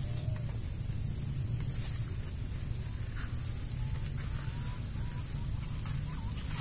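Steady low rumble, with faint rustling of corn plants as a person moves among the stalks and a few faint short chirps in the second half.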